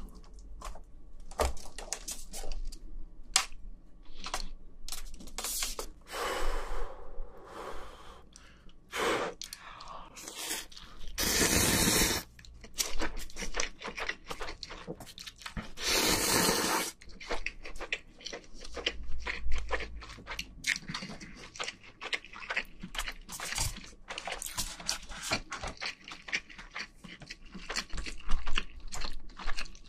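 Close-miked eating sounds: wet chewing and mouth clicks over rice, fried egg and Spam, with a few longer, second-long slurps of cup ramen noodles, loudest about a third and halfway through.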